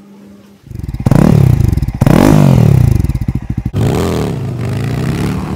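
Motorcycle engine revved hard several times through a loud exhaust, the pitch climbing and dropping back with each blip; it starts abruptly about half a second in after a faint hum.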